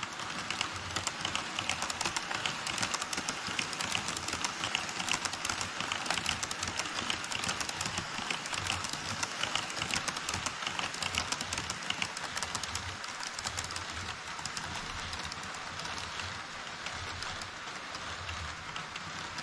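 HO scale model trains rolling across a model truss bridge: a steady rattling rumble of wheels on track, thick with fast fine clicks of the wheels over the rail joints, easing a little in the last few seconds.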